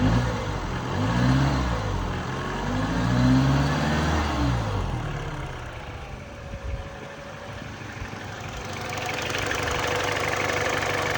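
Mini Cooper R56's N12 four-cylinder engine revved twice, pitch rising and falling each time, then dropping back toward idle before being brought up to raised revs and held near the end. The owner says the engine has piston slap, and that the knock is much harder to hear at higher rpm.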